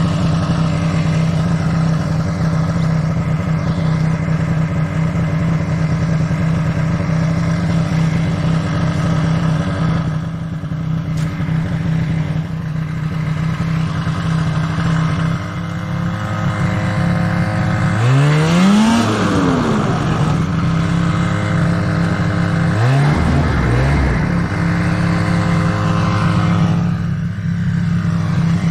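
Snowmobile engine running steadily under way, with one long rev that rises and falls in pitch about two-thirds of the way through, then two short blips of throttle a few seconds later.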